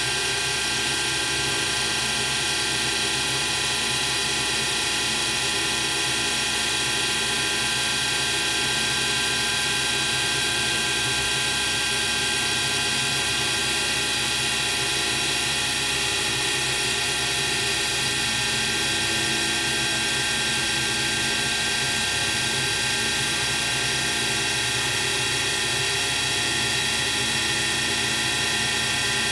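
CNC milling machine cutting a slot along a VSR-10 airsoft cylinder with a small end mill: steady machining sound, several high tones held level over constant cutting noise.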